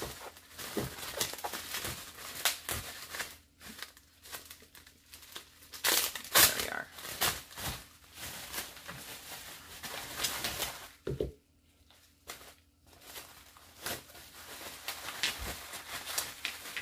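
Plastic bubble wrap crinkling and rustling in fits and starts as gloved hands unwrap small gel polish bottles, with a short lull about two-thirds of the way through.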